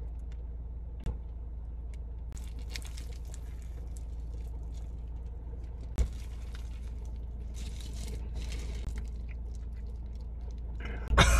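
Foil sandwich wrapper crinkling in the hands, in short spells, over a steady low hum inside a car cabin.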